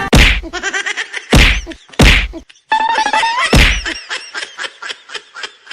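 Four loud whacks spread over about three and a half seconds, with pitched sliding tones and a run of quick, fading clicks between them.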